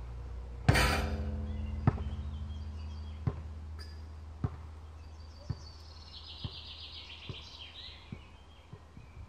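A basketball hits the metal hoop hard about a second in, setting it ringing with a low hum that slowly dies away. The ball then bounces on the court, each bounce fainter and quicker than the last as it comes to rest. A bird trills in the background near the end.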